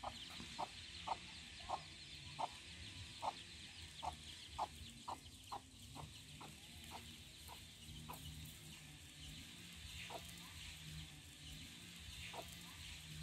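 Mother hen clucking softly in a steady series, about two short clucks a second, growing sparse over the last few seconds. This is the contact call a hen gives while leading her chicks.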